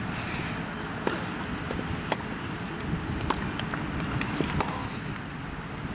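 Tennis balls struck by rackets and bouncing on a grass court: sharp pops about once a second, the loudest about three seconds in, over a steady low rumble.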